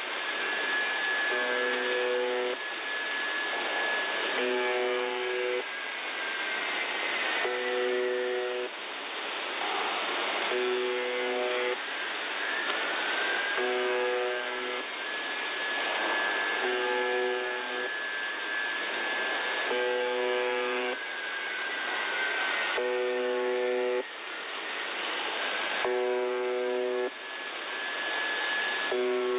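The Buzzer (UVB-76) shortwave station on 4625 kHz, received in upper sideband: a short buzz about a second long repeats roughly every two seconds over steady radio static. A whale-like whistle runs over it, several high tones that slide upward and then hold steady, starting again twice.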